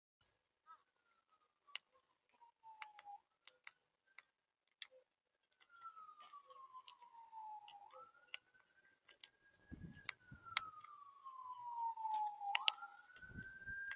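Siren wailing: its pitch slides slowly down over a couple of seconds, jumps quickly back up, holds, then slides down again. Many sharp clicks are scattered over it, and there are two short low rumbles in the second half.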